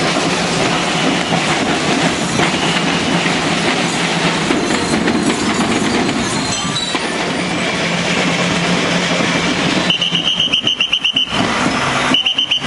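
School marching-band percussion, drums and cymbals, in a loud dense clatter. A high trilling whistle sounds for about a second near the end and again briefly just before it ends.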